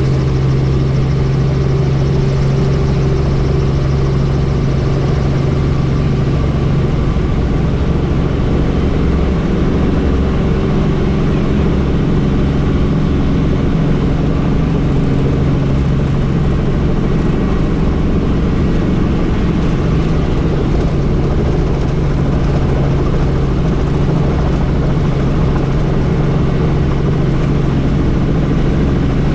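Helicopter running steadily, a loud continuous rotor and engine noise with a low throb and a steady hum.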